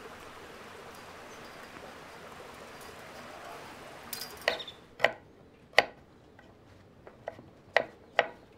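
Steady outdoor hiss for about four seconds, then a quieter room where a knife chops on a board in sharp, uneven knocks, about one to two a second.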